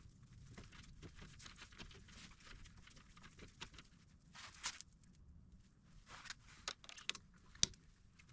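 Faint, scattered clicks and short scrapes of hand work on metal suspension parts, with a sharper metallic click near the end.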